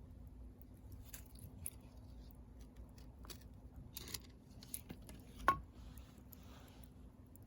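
Bonfire crackling, with scattered sharp pops, the loudest about five and a half seconds in.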